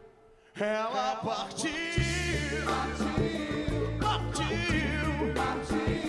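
Live soul-funk band music with a male lead singer. The music drops out briefly at the start, then the singer comes in on a wavering line, and the bass and full band kick back in about two seconds in.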